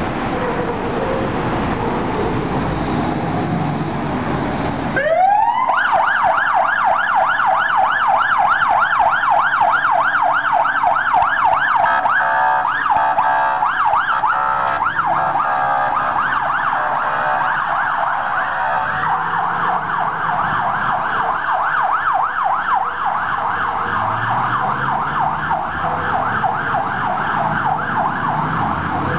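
Spartan Gladiator fire engine pulling out with its diesel engine running. About five seconds in, its Code 3 electronic siren starts with a rising sweep into a fast up-and-down yelp. For several seconds in the middle the siren changes to a choppier tone, then goes back to the yelp.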